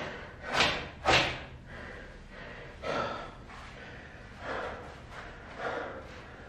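A man breathing hard after a set of burpees: two loud, sharp exhalations close together near the start, then softer breaths about every second or so as he recovers.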